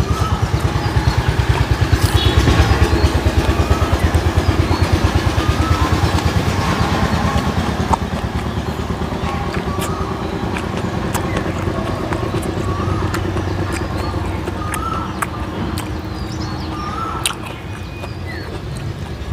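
A motor vehicle engine running with a fast, even throb, loudest in the first half and fading after about eight seconds.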